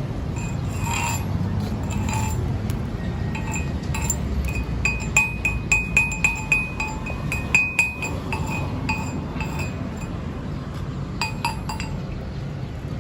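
Repeated sharp metallic taps on a steel workpiece, each leaving a short bright ring. They come in a quick run in the middle and a few more near the end, over a steady low background rumble.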